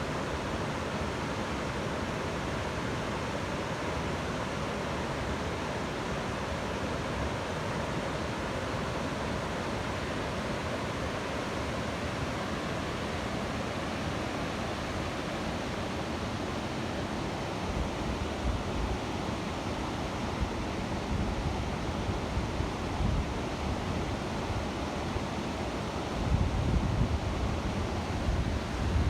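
A waterfall rushing in a steady, full roar of falling water. In the second half, low rumbling gusts of wind hit the microphone, strongest near the end.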